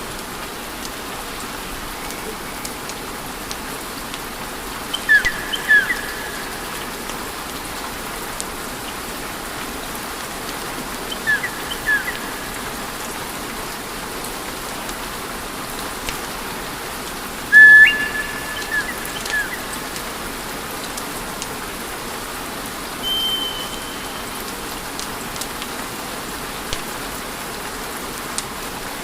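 Wood fire burning with a steady hiss and crackle, broken four times by short, high whistling squeaks; the third, about two-thirds of the way through, is the loudest.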